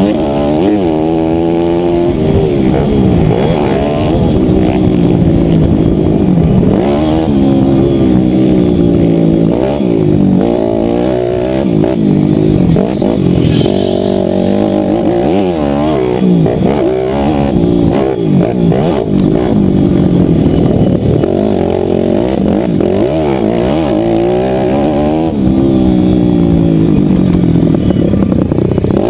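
Motocross bike engine at race pace, heard up close from on the bike, revving up hard and dropping in pitch again and again as the rider shifts gears and comes off the throttle.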